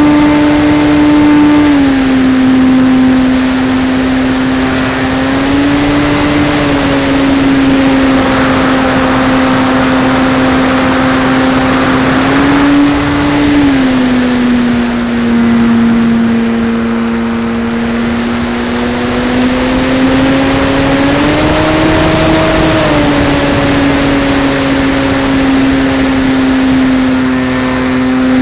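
Radio-controlled model airplane's motor and propeller heard from a camera mounted on the plane in flight: a loud, steady drone that steps up and down in pitch several times as the throttle changes.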